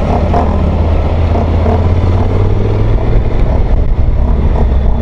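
Motorcycle engine running steadily at low road speed, a low hum under an even rush of wind and wet-road tyre noise.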